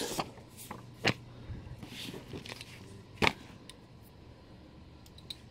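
Comic books being handled and slid over one another: a few short paper rustles and taps, the loudest about three seconds in, over a faint steady hum.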